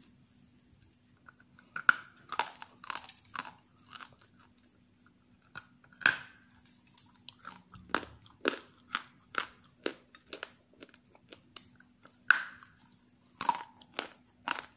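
Half-roasted grey clay crunching as it is broken and bitten: sharp dry cracks about every half second, starting about two seconds in, with a few louder snaps among them. The clay is very hard.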